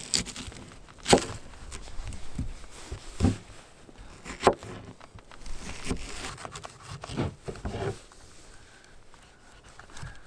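Kitchen knife chopping onion on a plastic cutting board: a series of uneven knife strikes on the board, sparser and quieter near the end.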